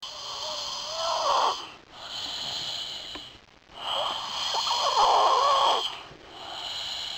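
Hard, labored breathing in sleep. Two long, noisy intakes of breath, the first carrying a whistling note that rises near its end, alternate with softer outbreaths. It is a hard sucking-in that leaves his family worried he is not getting enough oxygen.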